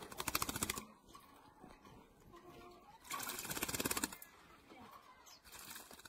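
Crested myna bathing in a plastic basin, fluttering its wings in the water in quick splashing bouts: one at the start, another about three seconds in lasting about a second, and a fainter one near the end.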